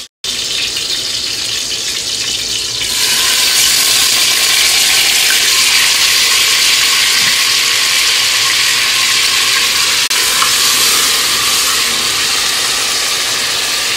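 Hot oil sizzling in a pot, first around a few slices of ginger; about three seconds in, pieces of marinated chicken go in and the sizzling becomes louder and fuller, a steady frying hiss as the chicken is turned with a wooden spoon.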